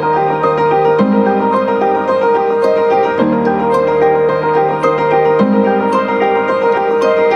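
Background music: a keyboard tune of steady notes over a low bass part that changes about every two seconds.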